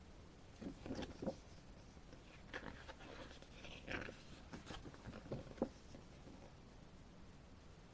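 Faint, irregular paper handling: a photo booklet's pages being turned and handled, in a few short soft rustles and taps, then quiet for the last two seconds.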